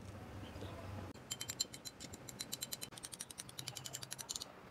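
A spoon stirring mayonnaise and ketchup in a small ceramic dish, clicking lightly and rapidly against the dish as it mixes. The clicking starts about a second in and stops just before the end.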